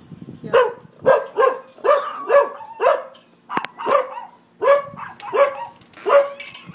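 Dog barking repeatedly, about ten short barks at roughly two a second.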